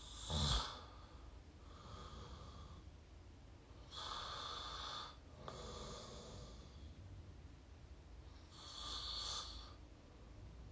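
A sleeping person snoring through an open mouth, recorded close up: one short, loud snore right at the start, then slow, airy breaths in and out.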